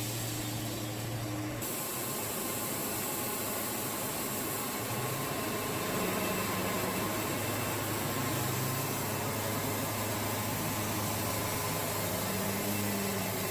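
Portable band sawmill running steadily: an engine hum under a broad hiss, which grows brighter about a second and a half in.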